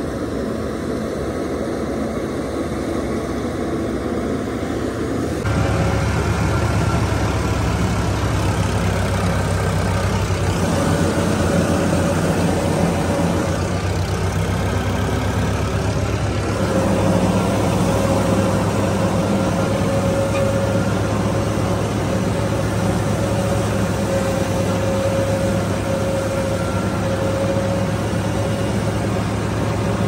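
New Holland 3630 three-cylinder diesel tractor engine running steadily under load while pulling a straw reaper through stubble, with a steady mechanical whine above the engine note. The sound gets louder about five seconds in.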